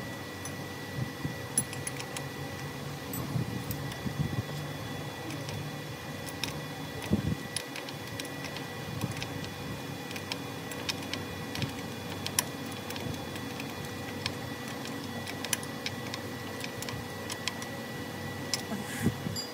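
Scattered, irregular metal clicks and clinks of hand tools working at a Ford Raptor's front steering knuckle, over a steady hum.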